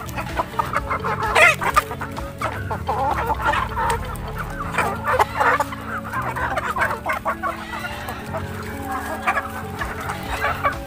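A flock of Rhode Island Red chickens clucking, many short calls overlapping without a break as the birds crowd around and peck at food.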